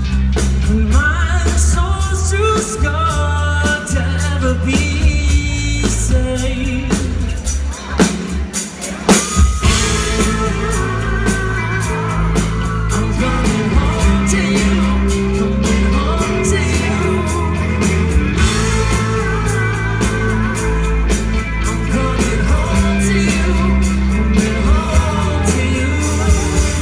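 Rock band playing live: a lead singer over drums, bass and guitar, with a brief drop in the band about eight seconds in before a loud hit brings it back.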